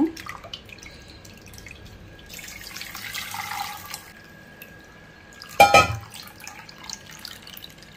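Freshly hand-squeezed coconut milk is poured from a steel bowl through a strainer into a steel pot: a splashing pour lasting a couple of seconds, then a thin trickle. One sharp clank comes about five and a half seconds in.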